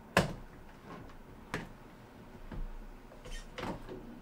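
A door being opened a little by hand: a few separate knocks and clicks from the door and its hardware, the loudest just after the start, then smaller ones about a second and a half in, near two and a half seconds, and a short cluster after three seconds.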